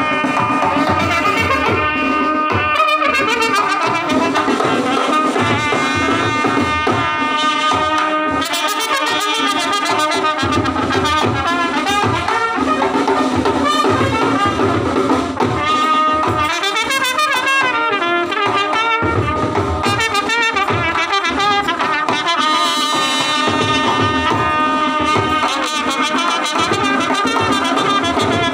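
A small brass band playing a folk tune: trumpet and long straight brass horns together over a beaten drum.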